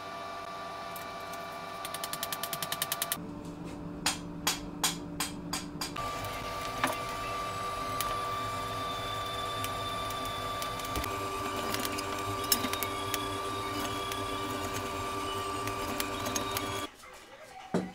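Forge air blower running with a steady motor hum and whine, its pitch shifting twice. About two seconds in there is a quick rattle of clicks, then a few sharp metal clanks. The hum cuts off suddenly near the end.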